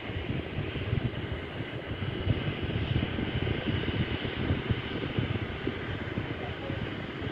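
Distant jet airliner engines rumbling steadily as the aircraft rolls along the runway, with wind buffeting the microphone.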